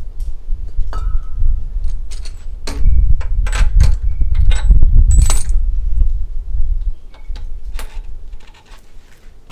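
Repeated sharp metallic clinks and rattles over a low rumble, fading out about seven seconds in.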